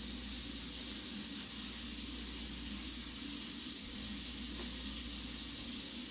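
Kitchen faucet running steadily into the sink, an unbroken hiss of pouring water.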